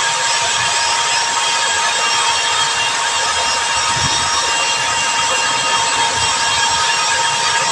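Small corded electric rotary buffer running with a steady whine, grinding against a rubber inner tube to roughen the area around the puncture before a patch goes on.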